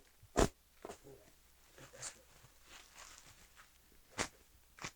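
Knife slicing open a shipping package by hand in short, quick strokes, each a sharp zip; about a second in it turns to softer scraping and rustling, then two more quick cuts near the end.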